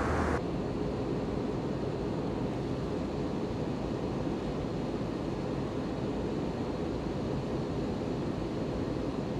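Steady cabin noise of an Airbus A321 airliner in flight: an even rush of airflow and engine noise. The sound changes about half a second in, where a low hum drops away.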